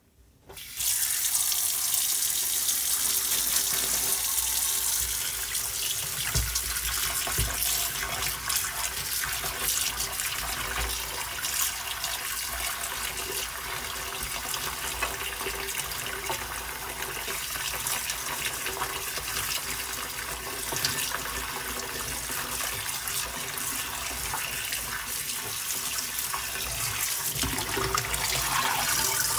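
Kitchen tap running into a stainless steel sink while raw fish pieces are rinsed by hand in a plastic colander. The water starts suddenly about a second in and then runs steadily.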